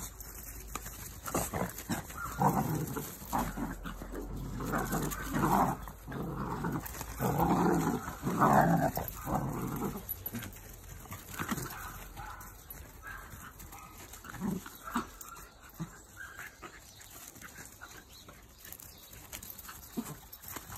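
Several dogs growling and barking as they play-fight, loudest and most frequent in the first half, then quieter and more scattered.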